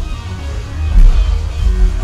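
Electronic film-soundtrack music with deep, heavy bass, played back on a home-theater system whose low end comes from a BIC Formula F-12 ported subwoofer with a 12-inch woofer. A strong bass hit lands about a second in.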